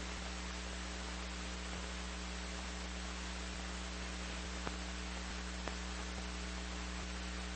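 Steady radio static hiss with a low mains hum under it and a couple of faint clicks, from a receiver picking up an emergency alert broadcast channel before the alert begins.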